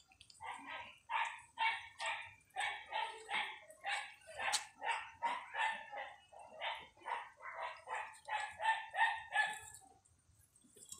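A dog barking in a long run of short barks, about two to three a second, stopping near the end.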